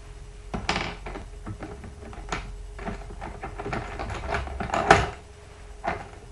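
Makeup containers and tools being handled: a run of clicks, taps and knocks, loudest about five seconds in.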